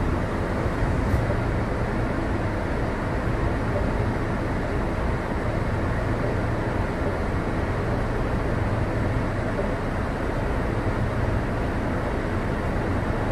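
Seaside Line 2000-series automated guideway train car standing at a station with its doors open: a steady low hum under an even rush of onboard equipment and ventilation, with no rise or fall in pitch.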